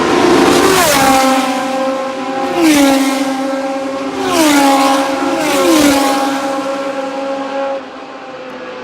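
Racing cars passing at speed one after another, about four in turn. Each engine's note holds steady as it approaches, then drops in pitch as it goes by, and the sound falls away near the end.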